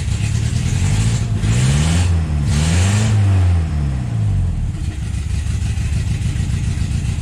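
Datsun L16 inline four-cylinder engine running, revving up about a second and a half in and settling back to a steady idle about four and a half seconds in.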